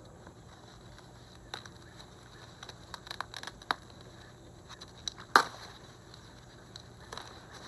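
Irregular crackles and clicks of something being handled, with one louder sharp snap about five seconds in, over a low steady hum.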